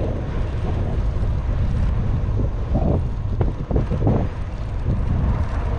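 Wind buffeting the microphone of a camera on a moving bicycle, a steady low rumble, with a few short knocks and rattles around the middle.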